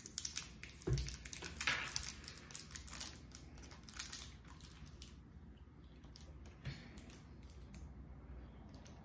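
Plastic snack wrapper being torn open and crinkled by hand, a run of small crackles that thins out and grows quieter after about five seconds.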